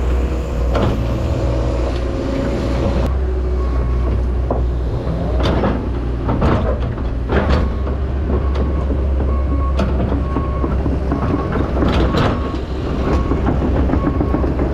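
Heavy earthmoving machine's engine running steadily under load, with several sharp metallic clanks in the middle and near the end. Short high beeps repeat from about four seconds in.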